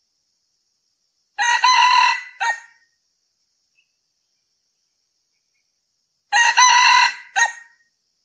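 Male red junglefowl crowing twice, about five seconds apart. Each crow is a short run of notes that breaks off, then ends in one brief clipped final note.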